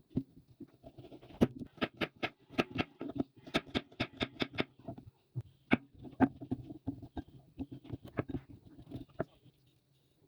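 Quick, irregular light taps and clicks of kitchen utensils working, several a second, pausing briefly near the end.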